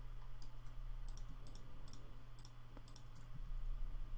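Irregular clicks of a computer mouse and keyboard, a few a second, over a low steady hum.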